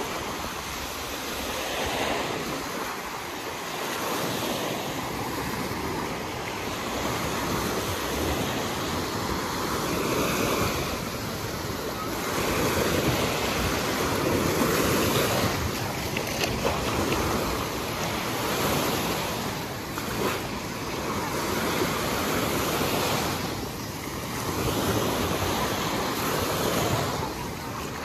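Small sea waves breaking close by and washing up and back over the sand at the water's edge, the rush swelling and easing every few seconds.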